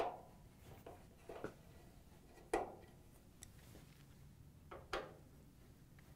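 Faint clicks and light metal knocks as a Phillips screwdriver backs screws out of a dryer's sheet-metal front brace and moves from screw to screw. There are a handful of short knocks, the loudest about two and a half seconds in.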